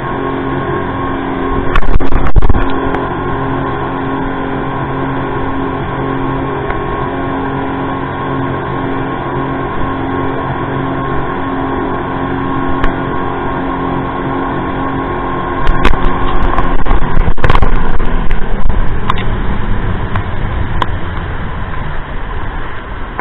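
Speedboat engine running steadily at speed, its hum under the rush of water and spray along the hull and wind on the microphone. Louder surges of splashing and wind come about two seconds in and again for a few seconds past the middle.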